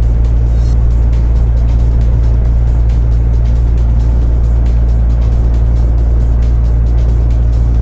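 Steady low rumble of a car's engine heard inside the cabin while the car is slowly reversed into a garage.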